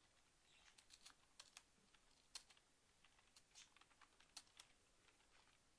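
Faint computer keyboard typing: irregular keystrokes, several a second, as a line of code is typed.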